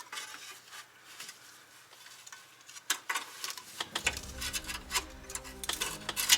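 Scattered light metallic clicks and taps of hand tools and hardware at the cardan shaft's flange joint. A steady low tone joins about four seconds in.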